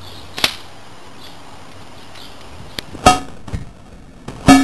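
L96 spring-powered airsoft sniper rifle being handled and fired: a sharp click about half a second in, then loud sharp snaps at about three and four and a half seconds, each with a short metallic ring.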